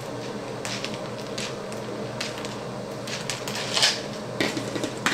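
Light, irregular clicks and taps of small cereal puffs being shaken out of a plastic canister and landing on a plastic high-chair tray, one tap louder about four seconds in, over a steady low hum.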